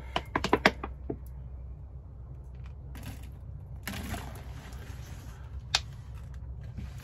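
Plastic water bottle crackling in the hand. About four seconds in, water poured from it splashes onto wax-treated fabric and runs off rather than soaking in, showing the waxing has waterproofed it. A single sharp click comes near the end.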